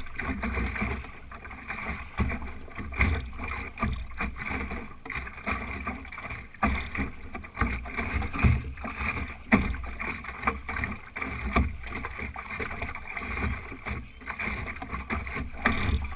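Water splashing and slapping irregularly against the hull of an Optimist sailing dinghy under way, with a low wind rumble on the boat-mounted microphone.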